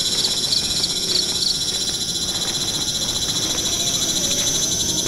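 Steady chorus of forest insects, a dense high-pitched pulsing buzz, with a few faint short high chirps in the first second and a half. The lowest band of the chorus cuts off suddenly at the very end.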